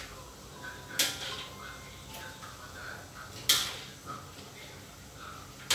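Cookware knocked together at the stove: two sharp clanks, about a second in and again two and a half seconds later, each with a brief ringing tail.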